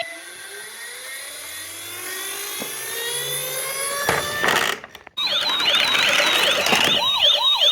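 A long rising sweep, then from about five seconds in a toy emergency vehicle's electronic siren wailing in quick rise-and-fall cycles, about two or three a second.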